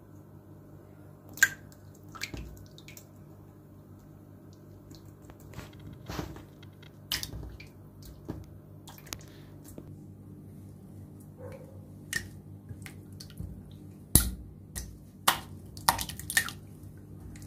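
Translucent slime being stretched, poked and pressed by hand against a stone countertop, giving scattered sharp wet clicks and pops. One loud pop comes about a second and a half in, and a cluster comes near the end, over a faint steady low hum.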